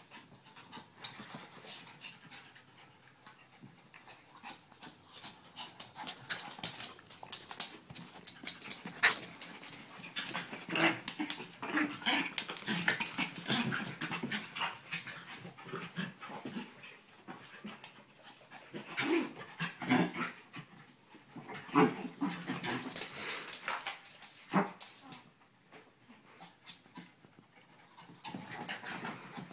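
A chihuahua and dachshunds tussling: panting, snuffling and scuffling, with many quick clicks and rustles and an occasional short whimper. The sounds are busiest in the middle and thin out near the end.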